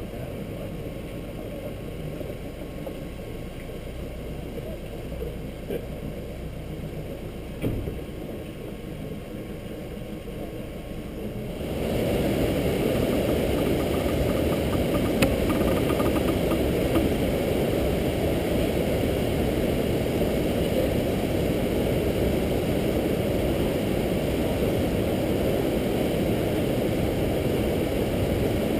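A sailboat's inboard engine running at low revs, stepping up to a louder, steady run about twelve seconds in as the boat motors forward in the lock.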